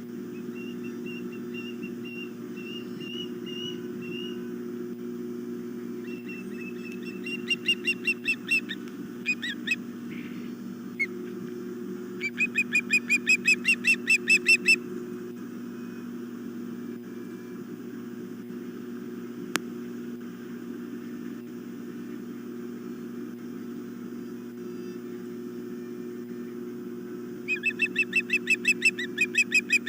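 Ospreys calling from the nest, most likely the hungry juveniles begging for fish: runs of rapid, shrill, whistled chirps, about four or five a second, several seconds at a time. The calls start faint, come louder twice in the middle, and are loudest near the end, over a steady low hum.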